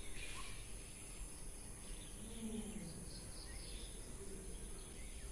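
Faint outdoor ambience with a steady high-pitched insect drone.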